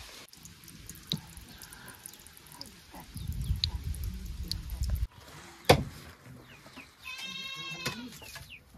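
A goat bleats once, a pitched call of just under a second near the end. Scattered sharp clicks come before it, and a sharp knock about two-thirds of the way through is the loudest sound.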